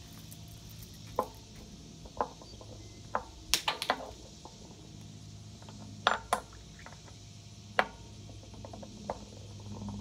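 Close handling noise: irregular sharp clicks and clacks of hard objects, with a quick cluster of several about three and a half seconds in and two more just after six seconds, over a steady low hum.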